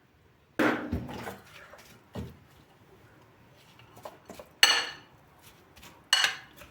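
Dishes and cutlery being handled in a kitchen: a few separate clinks and knocks a second or two apart, the sharpest ones ringing briefly.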